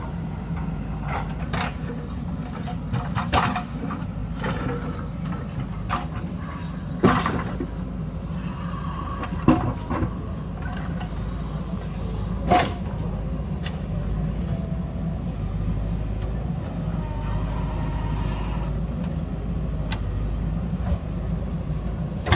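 Diesel engine of an earthmoving machine running steadily at work, with scattered metallic clanks and knocks on top, the loudest about seven, nine and a half and twelve and a half seconds in.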